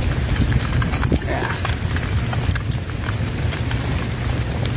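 Strong wind buffeting the microphone as a steady low rumble, with scattered sharp clicks and crackles over it.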